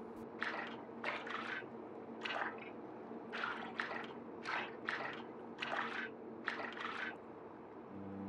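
Watery sound effects: about a dozen short liquid drips at irregular intervals, one or two a second, over a steady low drone.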